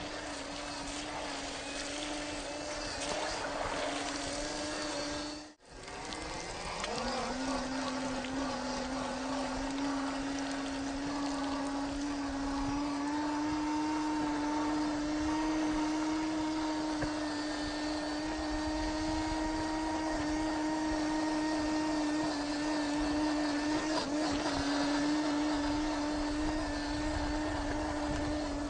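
Small electric motor and gear drivetrain of a 1/12-scale RC crawler whining at a steady pitch as it drives, with splashing through a mud puddle near the start. The whine drops out briefly about five seconds in, then winds up again and holds steady.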